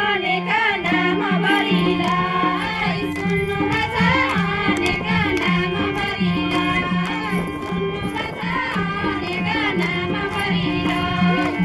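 Nepali folk song: singing with a bending melody over a hand drum keeping a steady, repeating beat.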